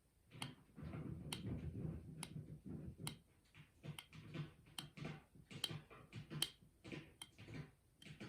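Hands working a Zippo lighter's plastic packaging loose: sharp clicks at roughly one a second among soft rustling and handling noise.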